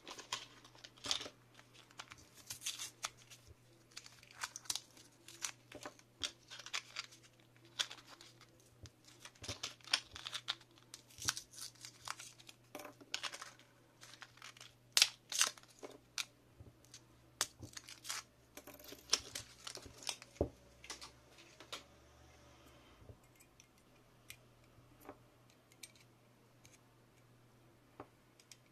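Crinkling and tearing of a coin-cell battery blister pack as the cells are pushed out of it: a dense, irregular run of crackles and clicks that thins out after about twenty seconds to a few light clicks.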